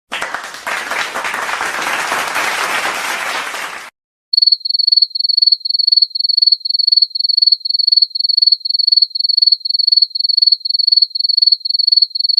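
Clapping sound effect, a few seconds of many hands clapping that stops abruptly. After a brief gap, a cricket sound effect begins: steady high-pitched chirps, about two to three a second.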